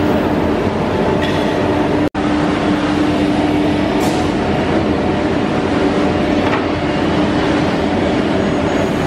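Holztek heavy-duty CNC nesting router running: loud, steady machine noise with a constant hum, broken by a momentary dropout about two seconds in.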